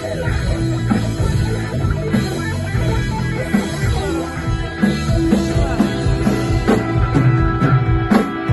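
Psychedelic rock music: an electric guitar solo over bass and drum kit, with steady drum hits.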